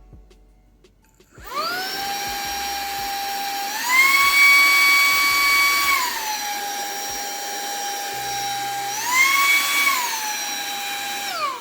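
Wyze cordless handheld vacuum switched on: the motor spins up to a steady whine in normal mode, then twice steps up to a higher, louder pitch in turbo mode and drops back to normal. It winds down as it is switched off near the end.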